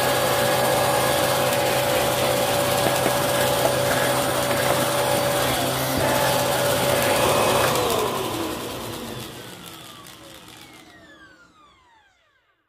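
Upright vacuum cleaner running steadily, then switched off about eight seconds in. The motor spins down with a falling whine that fades away near the end.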